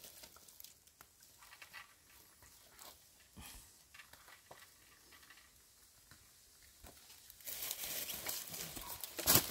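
Faint scattered clicks and light rustling, turning to louder rustling and crackling about seven and a half seconds in, with a sharp snap near the end.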